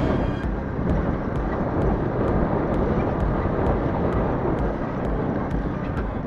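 Small moped engine running as the moped rides along, with wind buffeting the microphone.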